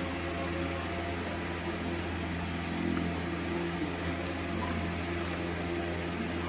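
A steady low electrical hum, with a few faint light clicks about four to five seconds in as wires and a screwdriver are handled.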